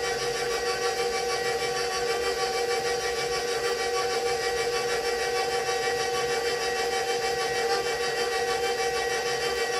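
Electric stand mixer running at a steady speed, its motor giving an even whine as the beater mixes chocolate cake batter in the steel bowl.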